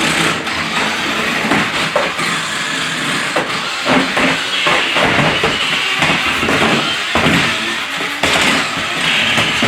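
Toy RC stunt car running, its small electric motor whirring while plastic wheels and body clatter and knock on the floor as it spins and tumbles.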